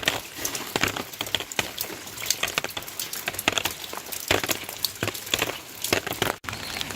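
Rain falling, with an irregular patter of drops striking a surface over a steady hiss.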